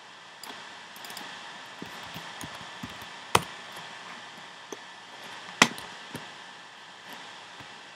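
Keystrokes on a computer keyboard: a few faint taps, then two sharp, loud clicks about two seconds apart, over a steady hiss.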